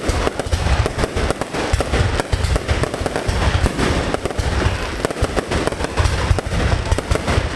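Aerial fireworks display going off in a dense, continuous barrage: rapid overlapping bangs and booming shell bursts with crackle between them.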